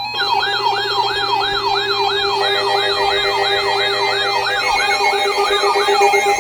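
Electronic sirens sounding together in a fast yelp, each rising and falling about three times a second, starting abruptly. Another siren layer and a steady tone join about two and a half seconds in.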